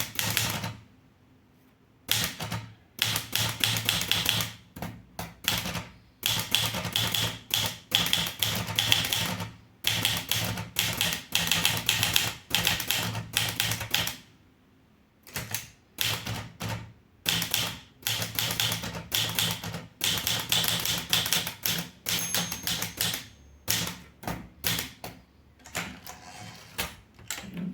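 Underwood 315 manual typewriter being typed on: runs of rapid key strikes broken by a few short pauses.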